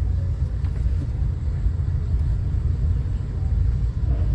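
Steady low rumble of a passenger train rolling along the track, heard from inside a dome car.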